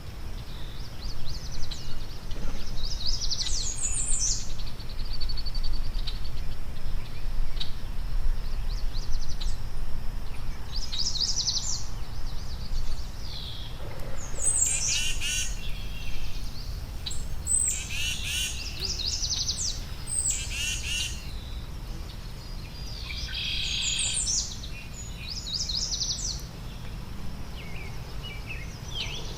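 Songbirds chirping and calling in short, repeated high-pitched phrases, over a steady low rumble.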